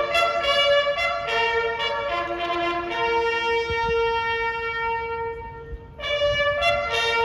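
Brass instruments playing a slow tune, with more than one note sounding at once. About three seconds in a long note is held, fading away near six seconds before the playing picks up again.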